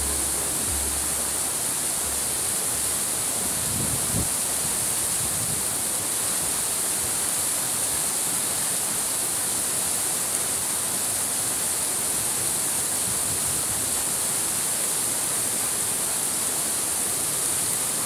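Waterfall and the rocky stream below it rushing, a steady, unbroken noise of falling and tumbling water.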